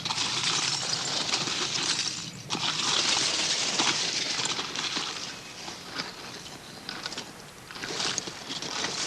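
Rakes and shovels scraping and crunching through a pit of freshly burned charcoal as it is dug out, in uneven spells with a quieter stretch a little past the middle.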